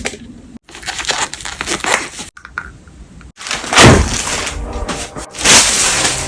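Collectible-figure packaging handled and opened: crackling and rustling in short edited bursts with abrupt cuts between them, loudest about four and five and a half seconds in.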